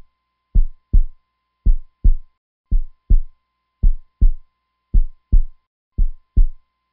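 Heartbeat sound effect: pairs of short low thumps, lub-dub, repeating steadily at a little under one beat a second.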